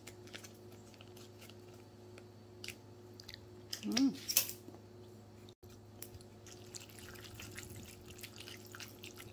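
Faint squelching and light scraping of a metal fork stirring cheese sauce into cooked macaroni in a plastic cup, after a cut about halfway through; before it, quiet handling of the foil cheese-sauce pouch, with a short louder noise about four seconds in. A low steady hum runs underneath.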